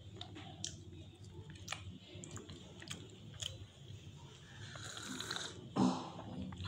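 Close mouth sounds of a person chewing a soft, syrupy sweet, with small wet clicks, then a slurping sip of hot tea about five seconds in. A brief voiced hum follows near the end.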